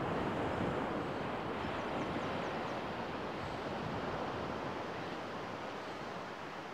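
Small waves breaking and washing up a sandy shore: a steady rushing surf that swells near the start and slowly eases off.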